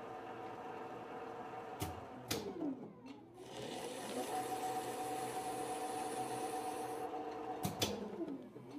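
Standard Modern lathe running under power with a steady gear whine. Twice, a pair of sharp clunks as the spindle is switched, then the whine slides down as it slows and climbs back as it spins up again. This is the spindle being reversed between threading passes while the half-nut stays engaged.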